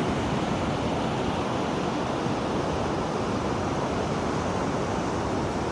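Steady rush of ocean surf and wind, an even noise with no distinct breaks or hits.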